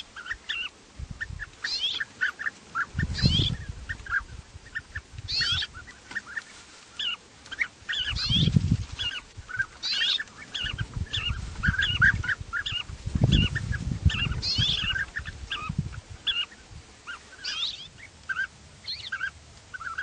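European bee-eaters calling as a flock: many short, overlapping calls, some as quick falling notes, with a few stretches of low rumble underneath.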